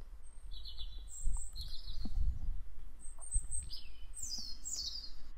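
Songbirds singing in a dawn chorus: a string of short, high phrases, several of them quick falling trills, over a low rumble.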